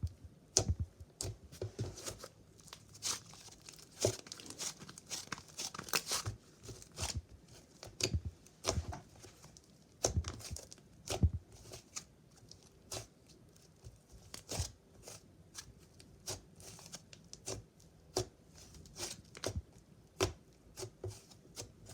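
Slime being squished, stretched and poked by hand, giving off irregular crackling clicks and pops with no steady rhythm.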